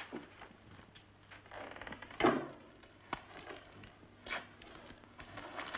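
Newspaper rustling as it is handled and its pages are shifted, in short irregular bursts with a few sharp clicks, over a steady low hum.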